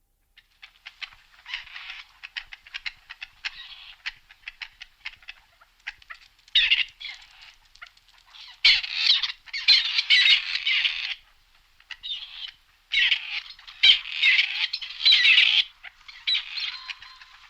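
Grey partridges calling: a run of rapid, dry clicking notes, then loud bursts of harsh, rasping calls, each lasting about a second, with softer calls near the end.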